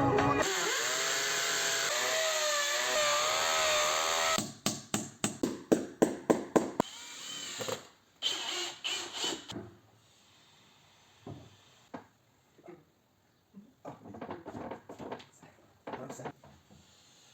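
Power drill running under load for about four seconds, its whine wavering in pitch. It is followed by a quick series of loud knocks, about three or four a second, then scattered softer knocks and handling sounds.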